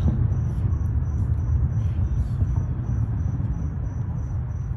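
Crickets chirping in a steady high pulse, about three chirps a second, over a constant low outdoor rumble. A single sharp click comes at the very end.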